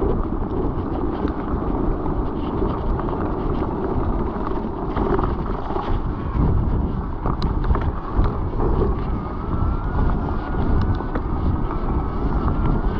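Wind buffeting the camera microphone while riding a mountain bike, a steady heavy rumble with no let-up. A faint thin tone creeps in and rises slightly about ten seconds in.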